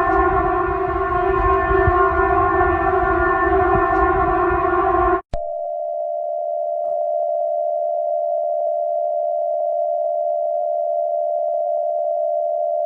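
Emergency siren holding one steady pitch over a low rumble, cutting off suddenly about five seconds in. After a brief gap, a single steady electronic alert tone follows and holds.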